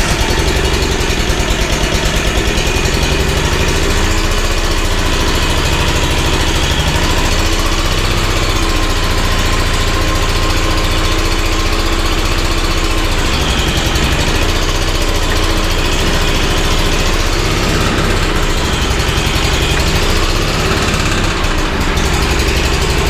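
Bandit SG-40 stump grinder's twin-cylinder engine running steadily under the throttle, with slight shifts in pitch. It is firing on only one cylinder and blowing oil, which the owner takes for a thrown rod or a hole in the block, yet it makes no knocking racket.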